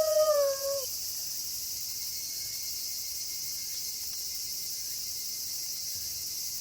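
Steady high-pitched chirring of a night insect chorus. In the first second a wolf's howl slides down in pitch and fades out.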